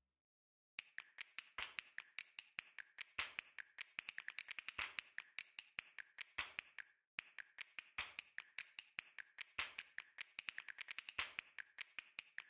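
A quick, uneven run of sharp clicks and taps with silence between them, starting about a second in and pausing briefly about seven seconds in.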